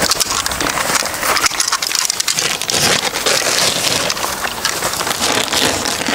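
Plastic film wrapping of a compressed Knauf Nord insulation pack being opened and crinkled: a dense, crackling rustle of handled plastic.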